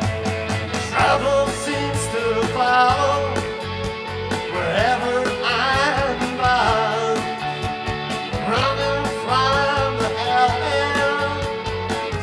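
Live rock band playing: Telecaster-style electric guitar, electric bass and drum kit, with a melodic line weaving over a held note.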